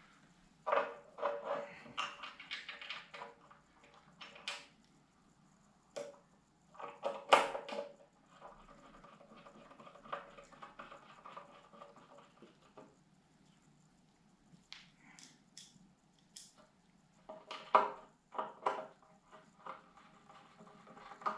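Screws being driven in by hand to fit a metal finderscope bracket onto a telescope tube: scattered clicks, light knocks and scraping of screwdriver, screws and bracket, with a few sharper clicks.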